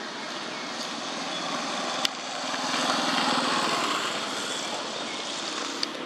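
Engine noise that swells about halfway through and then fades, with a sharp click about two seconds in and another near the end.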